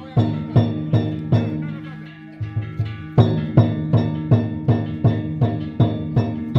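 Danjiri festival percussion (narimono): a taiko drum and ringing gongs struck in a steady beat of about two and a half strokes a second, easing off about two seconds in and coming back strongly about a second later.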